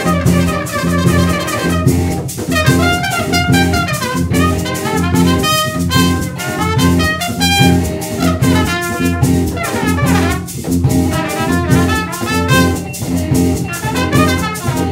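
Live band playing, a trumpet leading the melody over electric bass guitar and drum kit, with a quick run of trumpet notes about ten seconds in.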